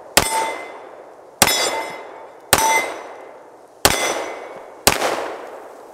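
Five shots from a Hi-Point JXP 10mm pistol, about a second apart, each followed by the ringing clang of a steel target plate being hit.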